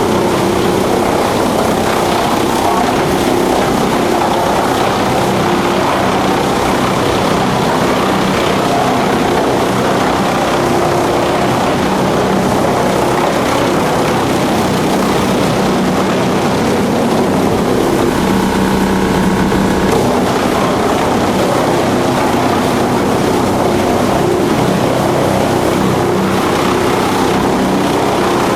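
Drum wood chipper running with a steady mechanical drone and hum, with a brief higher-pitched stretch about eighteen seconds in.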